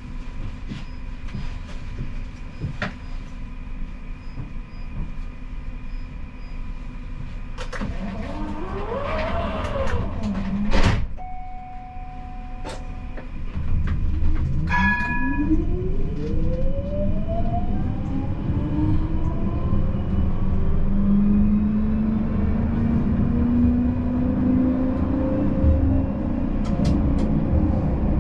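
Siemens Combino tram pulling away, its traction-motor whine rising steadily in pitch as it gathers speed over a rumbling running noise. Before it sets off there is a sharp knock and a few short beeps.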